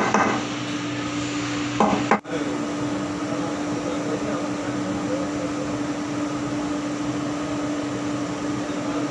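Steady machinery hum in a factory shed, an even noise with one constant low drone. There is a short clatter and a momentary dropout about two seconds in.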